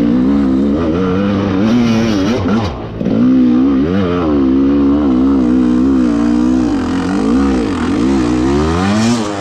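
Enduro motorcycle engine under load, revving up and down as the throttle is worked while riding across a steep slope. Its pitch keeps rising and falling, with a brief drop about three seconds in.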